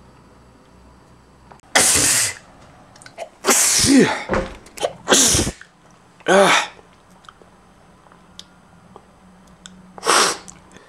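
A man sneezing loudly, about five times in a row. Several sneezes carry a voiced 'ah' that swoops in pitch, and there is a pause of a few seconds before the last one.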